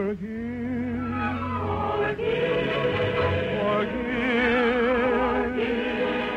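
Operetta ensemble of several voices holding long notes with strong vibrato over an orchestra, the drawn-out close of a sung number.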